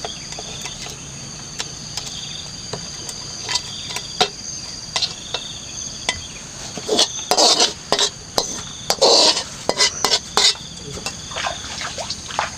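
A metal spatula scraping and clinking against a steel wok as the sauce-coated meat is scraped out, with the heaviest scraping from about seven to ten and a half seconds in. Insects keep up a steady high whine behind it.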